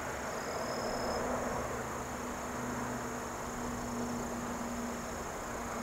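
Insects calling in a steady, continuous high trill, over an even low rush of background noise.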